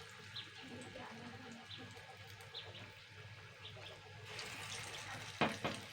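Faint sizzling and crackling of fuluri (chana dal batter fritters) frying in refined oil in a kadai over a medium flame, with a couple of short knocks near the end.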